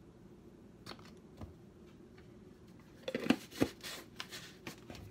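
Kitchen items being handled over a faint steady hum: a couple of light clicks, then a flurry of sharp clicks and rattles about three seconds in.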